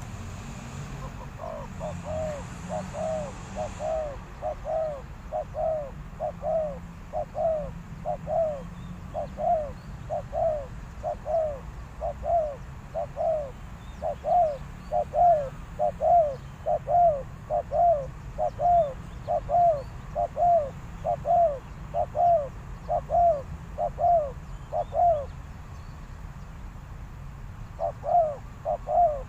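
A dove cooing: a long run of short, evenly repeated coos, about two a second, that stops for a few seconds near the end and then starts again.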